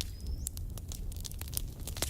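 Campfire crackling with irregular sharp pops over a low rumble. A loud pop comes right at the start, followed by a thin whistle that rises in pitch for about half a second.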